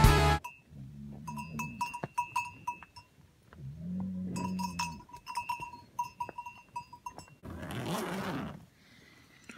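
Cowbells on grazing cows clinking and ringing unevenly, with a cow lowing twice, each low moo lasting about a second. Near the end there is a burst of nylon tent fabric rustling as the tent door is pushed open.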